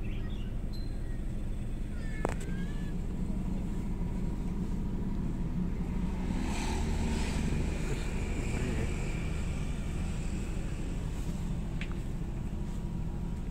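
Diesel engine running steadily at idle, a low even hum. It swells a little louder about six to eight seconds in.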